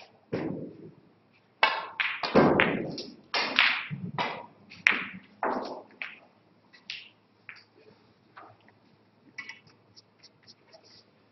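Snooker shot: a knock of the cue tip on the cue ball about half a second in, then a run of sharp clacks and knocks over the next few seconds as the balls collide and strike the cushions and a red is potted. Only faint small clicks follow.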